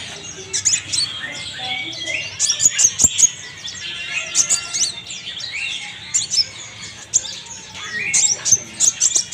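A kolibri ninja (konin) sunbird singing: rapid high chirps, twitters and short rising and falling sweeps, in clusters that come and go, with a single sharp click about three seconds in.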